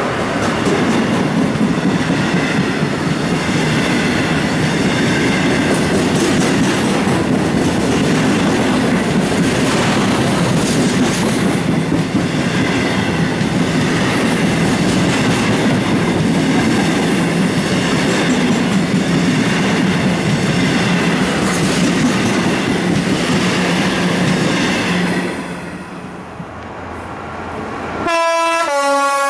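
A long freight train of loaded coal hopper wagons rolling past at speed: a steady rumble with wheel clatter over the rail joints, dying away about 25 seconds in. Just before the end, a diesel locomotive's horn sounds loudly for about a second.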